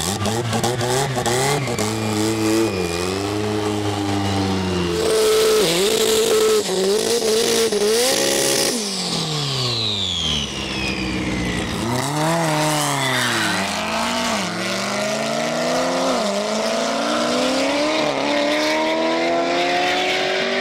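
Turbocharged Honda S2000 with a four-cylinder F22 engine revving up and down, then a burnout with tyres squealing and hissing. It then accelerates hard, the revs climbing and dropping sharply at each upshift, about every two seconds.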